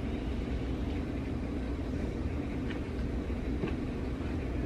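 A steady low rumble of background room noise, with a few faint clicks in the second half.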